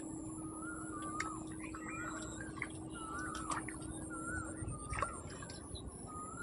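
A bird calling over and over: short warbling notes, roughly one a second, over a steady high whine and faint scattered clicks.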